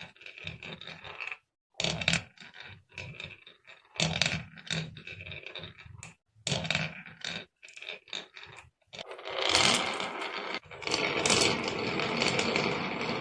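Marbles rolling and clacking down a wooden HABA marble run slope: short spells of rattling broken by brief silences, then from about nine seconds in a louder, continuous clatter.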